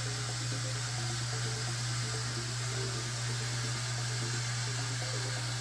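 Vapor blasting cabinet running: a steady hiss of the wet abrasive slurry spraying from the blast nozzle, over a steady low hum from its pump.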